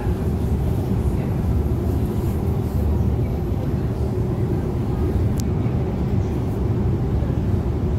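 Long metro escalator running, a steady low rumble of its step chain and machinery heard while riding it. A single short, sharp click about five seconds in.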